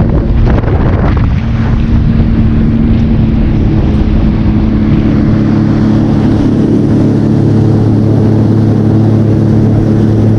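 Jet ski engine running steadily. Wind buffets the microphone over the first second or so.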